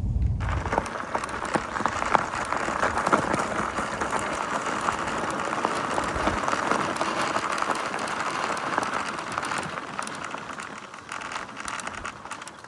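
Riding noise from an old trike on the move: a steady rush of tyre and wind noise with many small crackles, easing off near the end.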